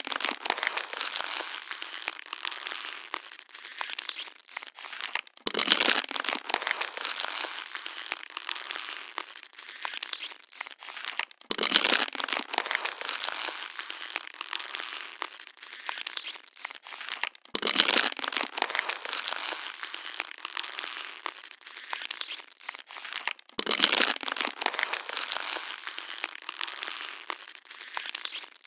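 Plastic water bottle being crushed and squeezed, a continuous crinkling crackle with a louder crunch about every six seconds.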